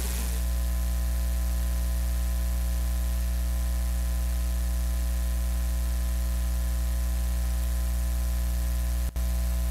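Steady electrical mains hum with a faint buzz and hiss in the sound system's microphone feed, cutting out for an instant about nine seconds in.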